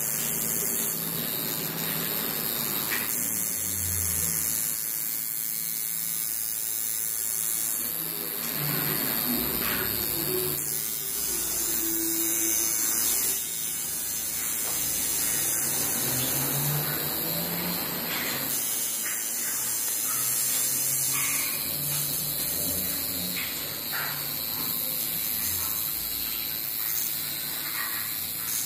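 Electric tattoo machine buzzing steadily as its needle lines lettering into the skin of a forearm.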